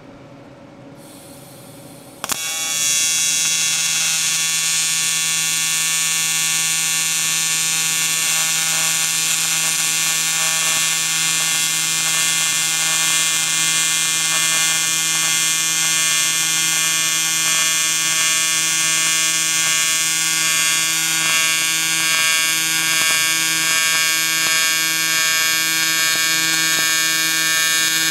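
AC TIG welding arc on aluminum, with the machine's AC frequency turned up high for a tight arc. It strikes about two seconds in and then holds a loud, steady electric buzz.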